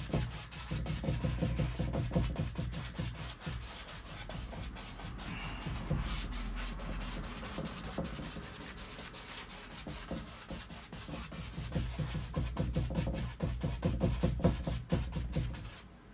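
Wide flat brush scrubbing oil paint across a canvas in quick crisscross strokes: a rapid, rhythmic rubbing of bristles on canvas that stops near the end.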